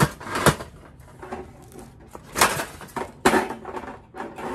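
Metal parts of an Iceco portable charcoal grill knocking and clinking against each other as they are slid into the grill's fabric carrying case, with scraping and rustling between the knocks. Two sharp knocks come right at the start, and a few more follow around the middle.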